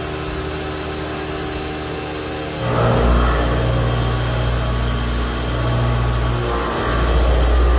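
CNC mill's 2-inch indexable high-feed mill cutting 304 stainless steel, a steady low mechanical drone with humming tones. About two and a half seconds in, it turns louder and heavier as the cutter bites into the work, eases briefly near the end, then bears down again.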